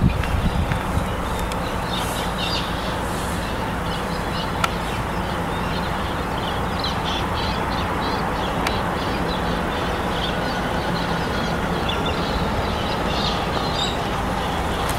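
Car engine running, heard from inside the car as a steady low drone, with birds chirping outside now and then.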